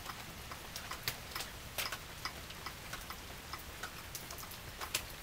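Raindrops dripping and tapping irregularly on nearby surfaces, a few sharp ticks a second over a faint hiss of rain.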